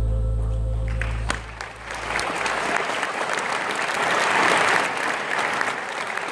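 A held final chord of music, with a deep bass note, rings out and fades over the first two seconds, then an audience applauds.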